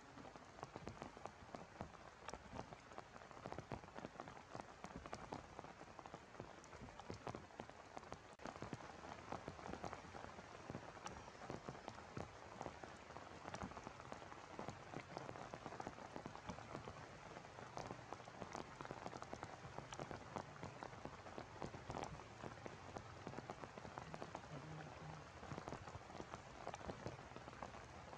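Steady rain falling, with many separate drops landing as sharp ticks. It grows a little louder after about eight seconds.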